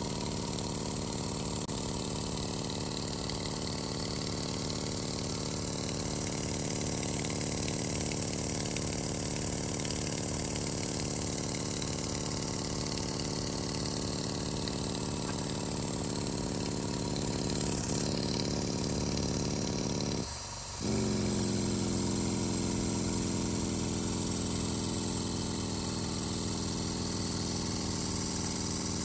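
Saito V4PR model engine running steadily with a rapid, even beat. About twenty seconds in it briefly falters, then runs on a little louder with a changed pitch. It is running on freshly replaced valve O-rings.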